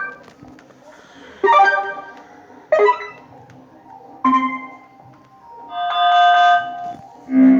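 A string of five short Android notification chimes, each a different tone and about a second and a half apart, the fourth held a little longer.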